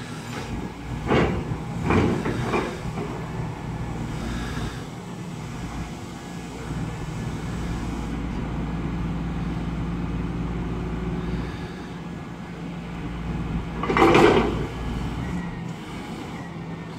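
Volvo EW205D wheeled material handler's diesel engine and hydraulics running steadily as the boom and grapple are worked. A brief, louder noise cuts in about fourteen seconds in.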